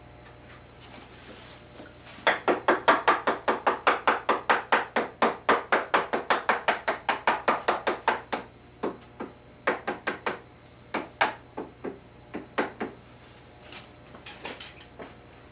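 Rapid tapping: a run of sharp, slightly ringing knocks, about five a second, starts about two seconds in and lasts some six seconds, then slows to scattered single knocks.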